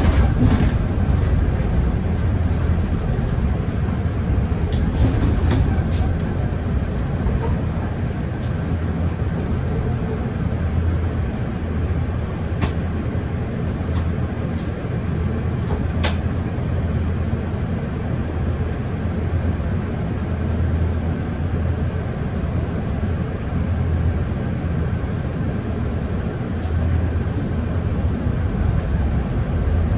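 Mercedes-Benz Citaro Facelift city bus under way: a steady low engine and road rumble, with a few sharp clicks or rattles around the middle.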